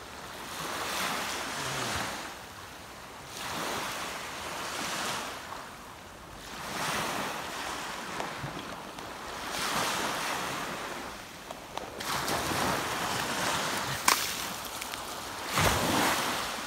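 Small sea waves breaking and washing up on a sandy beach, the surf swelling and fading every few seconds, with some wind on the microphone. Near the end there is a sharp click and then a thump.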